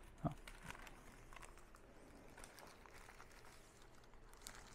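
Faint crinkling of a clear plastic bag around a printed manual as a gloved hand handles it, with one brief low sound just after the start.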